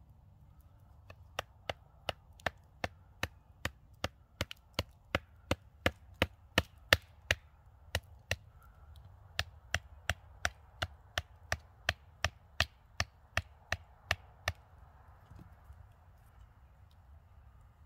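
A hand tool striking a wooden stick over and over, sharp knocks about two and a half a second, as the stick is split to make a campfire skewer. There is a short pause about halfway, and the knocking stops a few seconds before the end.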